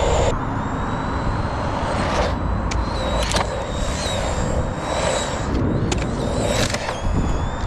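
Radio-controlled car driving on tarmac: a high motor and gear whine that wavers in pitch with the throttle, over a rumble of tyres and wind on the microphone, with a few sharp clicks.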